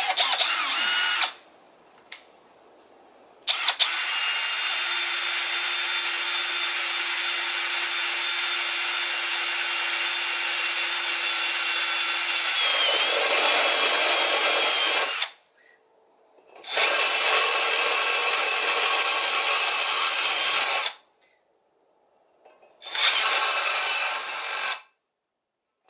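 Milwaukee Fuel brushless cordless drill running a step bit into a cast aluminium cover, in four runs: a brief one at the start, a long one of about eleven seconds, then two shorter ones, with near silence between them. The drill's sound changes a little before the long run ends, as the bit bites into the metal.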